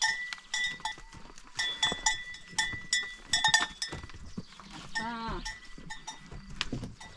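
Livestock neck bells clanking and ringing over and over as farm animals shuffle into their stalls, with knocks and rustling. One short wavering animal bleat comes about five seconds in.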